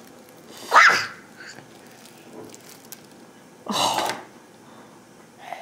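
Two short, breathy puffs of noise, like sniffs or sharp exhalations, about three seconds apart.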